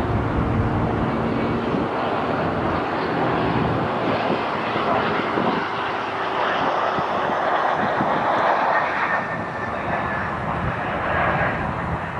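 Boeing 777 airliner's twin jet engines running as it rolls along the runway: a steady, loud rushing noise with a low rumble beneath.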